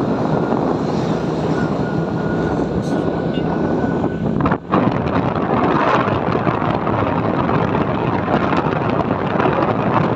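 Motorbike riding along a road: wind rushing over the microphone together with engine and tyre noise, with a thin steady whine. The whine stops about four and a half seconds in, where the sound briefly drops out.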